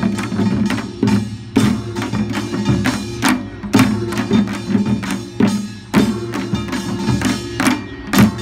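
Korean pungmul folk percussion ensemble playing: sharp drum and gong strikes in a driving rhythm, about two a second, over sustained metallic ringing.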